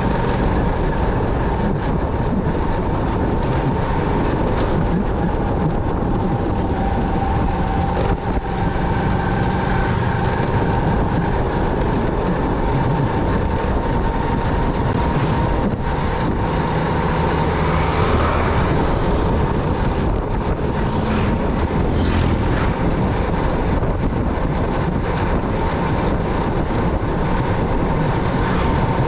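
Motorcycle on the move: steady engine and road noise, with a faint steady whine over roughly the first half.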